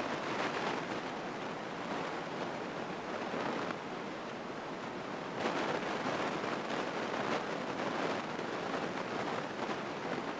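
Steady cockpit noise of a light airplane in flight, engine and wind heard as an even rushing hiss, a little louder from about halfway through.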